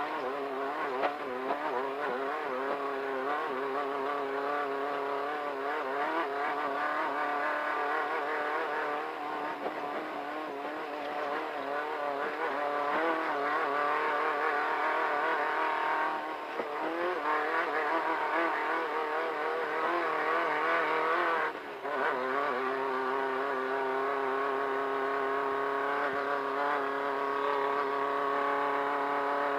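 Volkswagen Beetle-based desert race car engine running hard under load, its pitch wavering up and down with the throttle. There is a brief drop about twenty seconds in.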